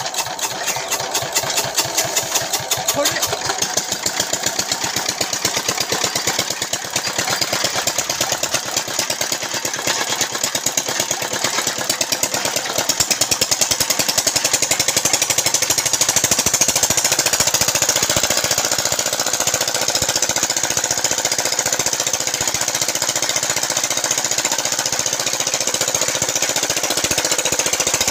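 Petter diesel engine running with a fast, even knocking beat, coming up in loudness over the first couple of seconds and then holding steady.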